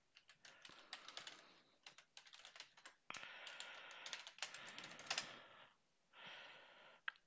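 Faint computer keyboard typing: quick runs of key clicks with short pauses between them, with a soft hiss under the keys for a couple of seconds in the middle.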